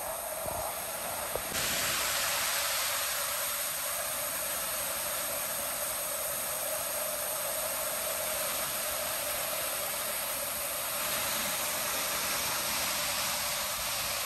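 Small waterfalls pouring into a rock pool: a steady rushing hiss of falling water, which gets louder about a second and a half in.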